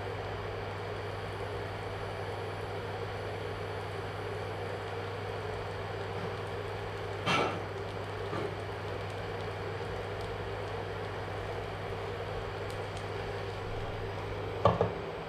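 Induction cooktop running with a steady hum and fan noise, and faint sizzling from a banana-leaf parcel frying in a little oil on the pan. There is a single sharp knock about seven seconds in, and near the end a clink as a glass lid is set on the pan.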